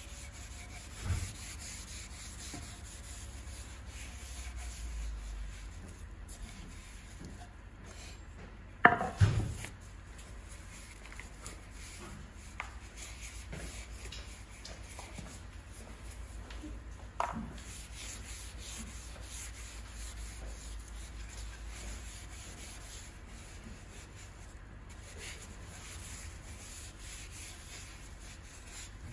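Cloth rag rubbing oil finish over a wooden cutting board, a steady soft hiss. A few knocks break in, the loudest about nine seconds in.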